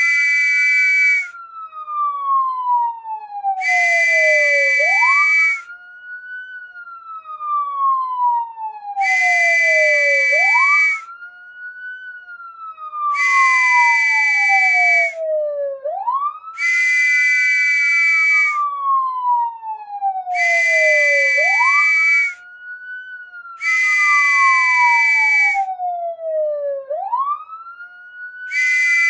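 Police whistle blowing loud, high blasts of one to two seconds each, every few seconds, over a police siren wail. The siren rises quickly and falls slowly, about every five and a half seconds. The whistle blasts are the loudest sound.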